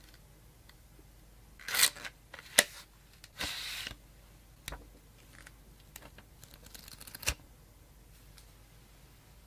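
Tablet packaging being handled: a brief rustle, a sharp click, a half-second scrape or tear, then a run of small crackles and clicks ending in a sharper click.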